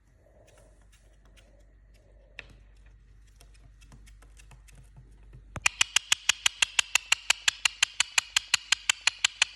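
Indian ringneck parakeet making a fast, evenly spaced run of sharp clicking calls, about seven a second, starting suddenly a little past halfway. Before that, only faint low sounds and one single tick.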